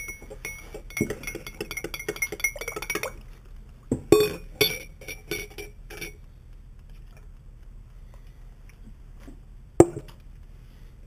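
Metal spoon stirring tea in a ceramic mug, clinking rapidly against the sides with a bright ring for about three seconds, then a few louder taps and clinks. Near the end, a single sharp knock, the loudest sound.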